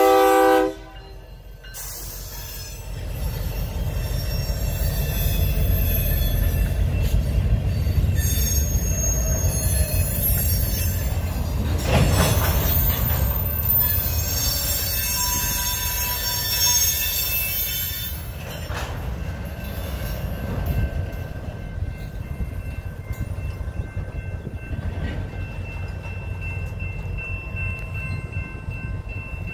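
The last second of a diesel locomotive's horn blast, then a cut of covered cement hopper cars rolling slowly past. The cars make a low, steady rumble, with high-pitched wheel squeal from about eight to eighteen seconds in that then fades.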